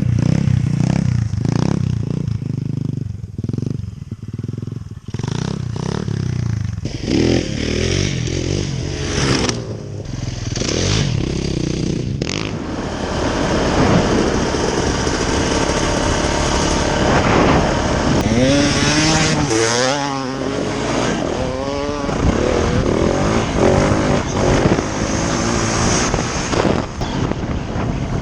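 Dirt bike engine running under way, the revs repeatedly climbing and dropping as the throttle is worked and gears are changed. There is a run of quick rev rises about two-thirds of the way through.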